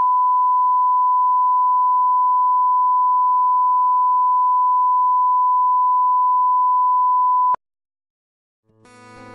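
Steady 1 kHz line-up test tone of the kind played with broadcast colour bars, cutting off suddenly about seven and a half seconds in. After a second of silence, strummed guitar music fades in near the end.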